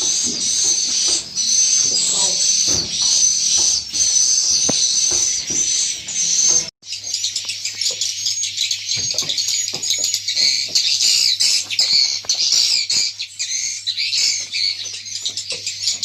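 Many swiftlets twittering in a dense, continuous mass of high chirps. The sound cuts out abruptly for a moment about seven seconds in, then resumes over a low steady hum.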